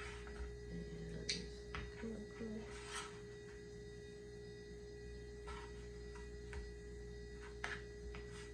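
Steady hum with a few faint soft taps and scrapes as a plastic coating tool presses chicken into a tray of seasoned flour.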